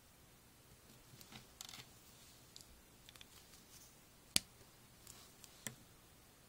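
Faint handling of a felt-tip marker and paper: light scratches and rustles, then a sharp click about four seconds in and a smaller one about a second later.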